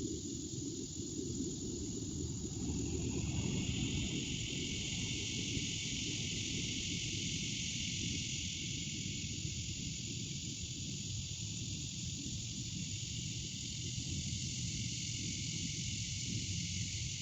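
Steady outdoor noise: a high hiss that grows stronger about three seconds in, over a constant low rumble, with no pops or clicks.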